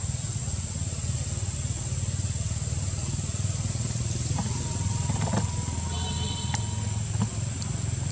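A steady low engine-like rumble with a fast flutter, under a thin steady high whine; a held whistle-like tone joins it about halfway through for a couple of seconds.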